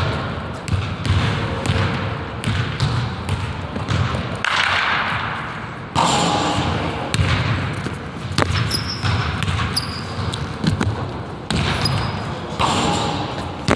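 Basketball bouncing on a hardwood gym floor, a string of irregular thumps, with short high squeaks near the end.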